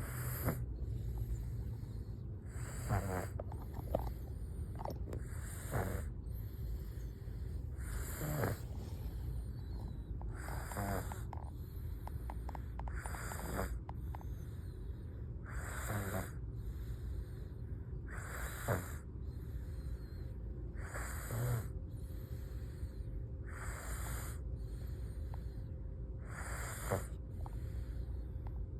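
Snoring in a steady sleeping rhythm, one snore about every two and a half to three seconds, over a steady low hum.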